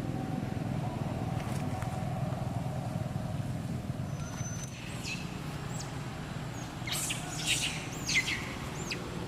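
Low steady rumble like a motor vehicle engine, with several short, high-pitched chirping calls that fall in pitch, clustered about seven to eight seconds in.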